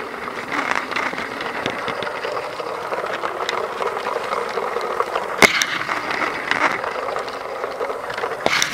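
A Lego train running on plastic track, heard close up from on board: its motor and wheels make a steady rattle, with a sharp click about five and a half seconds in.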